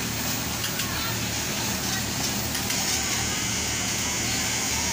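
Electric fabric cutting machine running with a steady low motor hum; about three seconds in a higher whirring hiss grows louder, as the machine is worked from its foot pedal.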